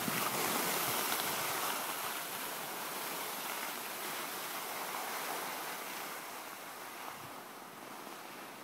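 Skis sliding over groomed snow with air rushing past, an even hiss that slowly dies away as the skier slows down.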